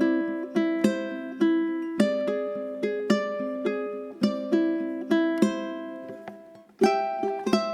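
Gentle background music of plucked strings, ukulele-like, with single notes and light chords about twice a second, each ringing out. It fades to a brief pause a little past halfway, then the plucking resumes near the end.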